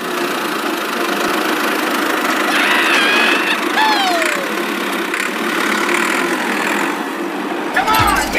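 Small motor running steadily, with a few short gliding chirps about three to four seconds in.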